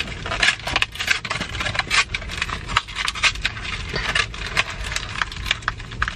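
Take-out food packaging being handled: paper bag and wrappers crinkling and rustling in quick irregular crackles, with small knocks of containers being set down.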